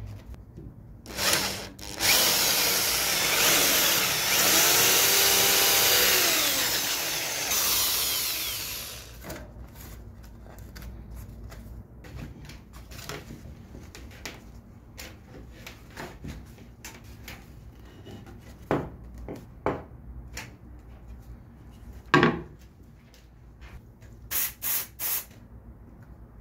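A handheld power tool working on wood runs for about seven seconds, its pitch falling and rising as it works. After it stops come scattered light knocks and clicks of wood being handled, then three short squirts of glue from a squeeze bottle near the end.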